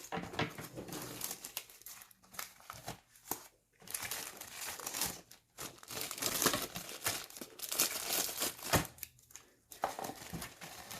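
Plastic bags crinkling as model kit parts are handled, in irregular spurts with a few short pauses.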